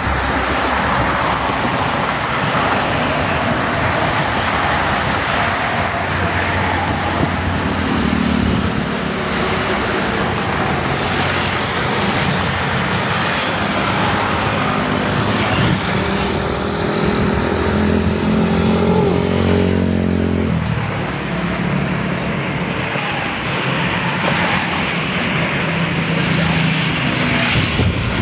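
A container box truck's engine running amid road traffic noise, with the multi-tone 'telolet' horn sounding in sustained pitched tones from about eight seconds in until about twenty seconds in, and briefly again near the end.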